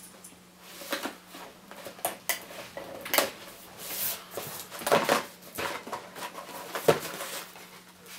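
Packaging of a box being opened and handled: irregular rustling and crinkling with a few sharper knocks, the loudest about five and seven seconds in, over a faint steady hum.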